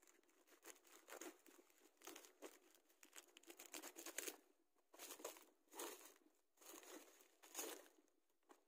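Plastic courier mailer crinkling and rustling as it is handled and cut open with scissors, dense crackling at first, then separate rustles as a boxed item is pulled out of the bag.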